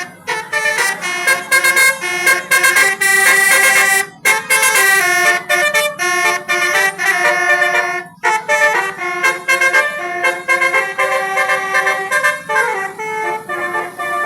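Bus telolet horn, a Basuri multi-tone air horn, playing a jingle of several notes at once that change in quick steps. It breaks off briefly about four seconds in and again about eight seconds in.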